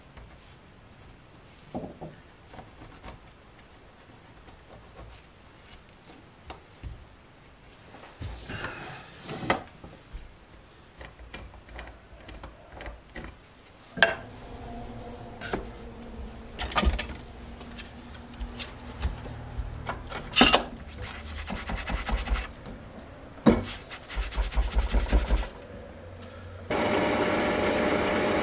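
Pencil scratching on a pine board as it is marked, then scattered sharp knocks of wood pieces being handled. Near the end a drill press and its dust-extractor hose start up with a loud, steady noise.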